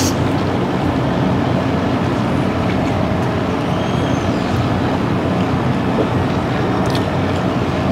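Steady rumbling background noise of a restaurant dining room, even throughout with no clear rhythm.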